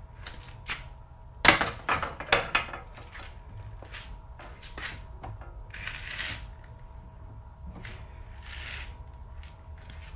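Handling noises from a person climbing into and out of the cockpit of a gravity race car: a cluster of sharp knocks and clatters about one and a half to three seconds in, then scattered ticks and two soft rustling swishes.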